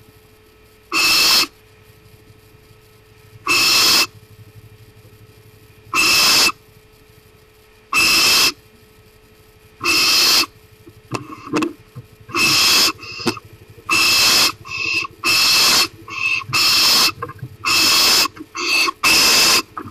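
Barn owl giving harsh, hissing screech calls, each about half a second long. They come every two to two and a half seconds at first, then about once a second from around the middle on.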